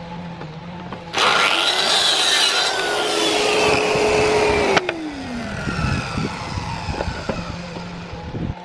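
Electric saw cutting wood: it starts suddenly about a second in and runs for about three and a half seconds, then is released and spins down with a falling whine. A few light knocks follow.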